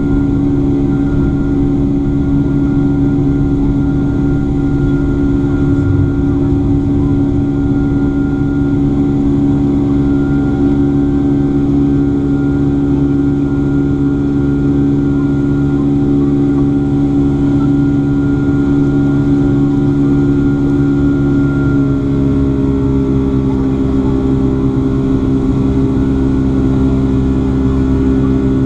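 Boeing 757-300 turbofan engines heard from inside the cabin during the climb after takeoff: a loud, steady drone with several hums and a higher whine. About two-thirds of the way through, the engine tones shift in pitch.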